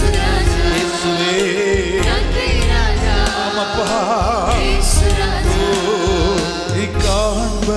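Worship band performing a Tamil praise song: a male lead and backing singers sing with vibrato over electronic keyboard accompaniment with a steady beat.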